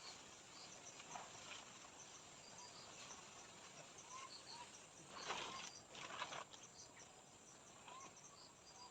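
Faint forest ambience: insects chirping in short repeated bursts and small rising animal calls, with two brief rustles about five and six seconds in.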